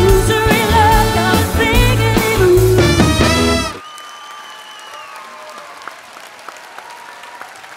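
Live pop band with a female lead singer, the vocal gliding upward just before the music cuts off abruptly about four seconds in. Audience applause and cheering follows, much quieter.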